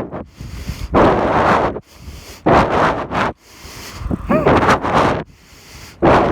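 Heavy, laboured breathing blown straight onto a phone microphone held in the mouth: four loud breaths about every one and a half seconds, with a short voiced groan in one of them about four seconds in.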